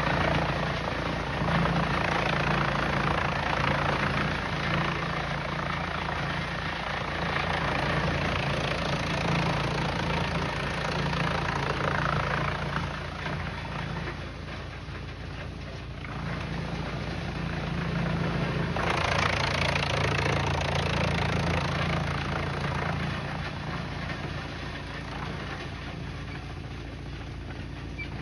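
Heavy wood-chipping machinery running: a steady low engine hum under a rushing, grinding noise that swells and eases several times.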